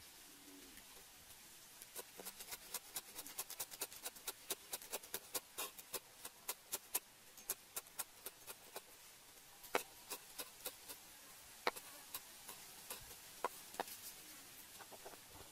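Cleaver chopping green leaves on a wooden chopping board: a fast run of sharp knocks of the blade on the wood for several seconds, then slower, scattered chops.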